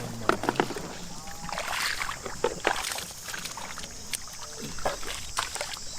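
Shallow field water sloshing and splashing in irregular strokes as a fisherman wades and gropes for fish by hand.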